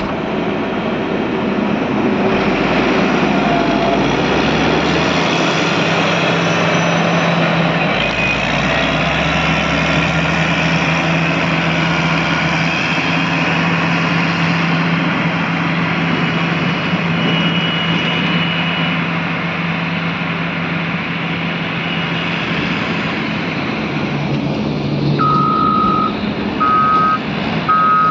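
Caterpillar 120 motor grader's diesel engine running steadily while working. Near the end a reversing alarm starts beeping at an even pace as the machine backs up.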